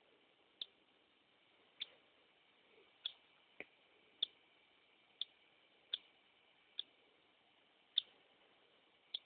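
Faint, very short, high chirps from a hatching cockatiel chick, about ten of them at uneven spacing, roughly one a second.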